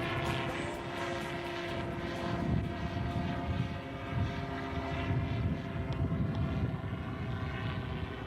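Small propeller engine of a radio-controlled model airplane running steadily as it flies.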